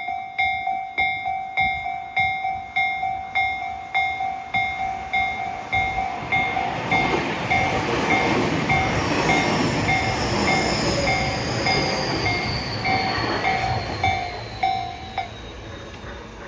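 Japanese level-crossing warning bell ringing, just under two electronic strikes a second, as a Tobu 60000 series electric train passes over the crossing. The train's rolling noise swells from about six seconds in, with a high motor whine gliding slowly down in pitch. The bell stops about fifteen seconds in.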